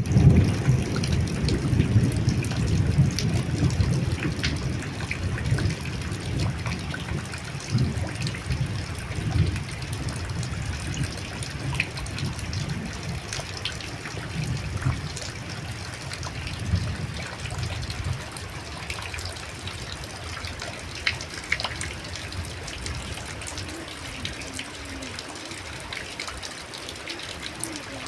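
Light rain falling: a steady wash of water noise with scattered drops ticking, over a low rumble that is strongest at first and eases off about two-thirds of the way through.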